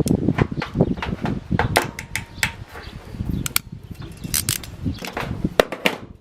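A string of sharp clicks and small knocks from hand tools and MC4 solar connector parts being handled and worked, as a cable connector is made up.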